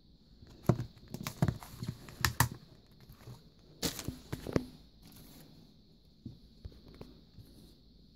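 Paper and packaged craft supplies being handled: rustling, crinkling and light taps in quick clusters through the first half, then a few scattered soft taps.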